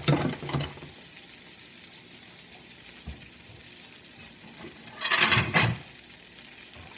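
Gnocchi frying in butter and a splash of chicken stock in a nonstick pan: a steady sizzle, louder at the start while the pan is shaken on the burner, with a second louder burst of sizzling and pan noise about five seconds in.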